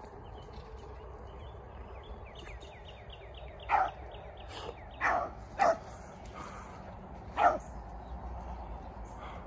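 Beagle pup barking four times: one bark, then a quick pair a second later, then a last bark about two seconds after that.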